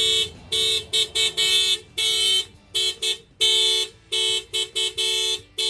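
Excalibur car alarm, just triggered, blaring in a run of short and longer blasts of a steady pitched tone.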